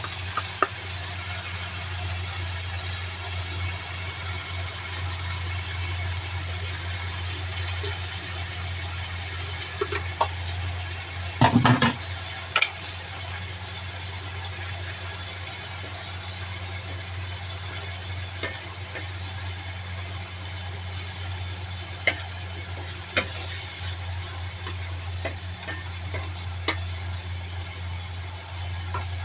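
Eggs and dragon chives frying in hot oil in a pan: a steady sizzle over a low hum, with occasional sharp clanks of a utensil against the pan. The loudest clanks come about eleven to twelve seconds in.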